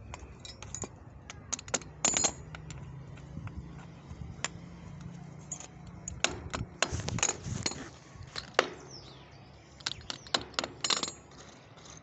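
Irregular sharp metallic clinks and taps of small hardware being handled on a concrete floor, in clusters about two seconds in, around seven seconds and again near the end.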